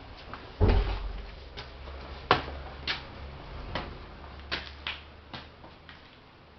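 A heavy low thump, then a run of sharp, irregular clicks and knocks, one or two a second, growing fainter near the end.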